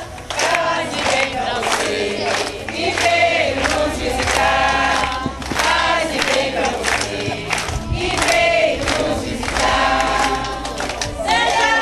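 A group of voices singing a song together, with hands clapping along.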